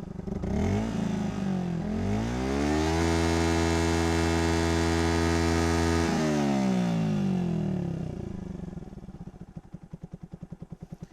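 Yamaha Vixion's single-cylinder four-stroke engine breathing through a 3Tech Ronin Katana SE exhaust set to street mode: a quick blip of the throttle, then revved up to the limit and held there steady for about three seconds, before the revs fall back to a pulsing idle.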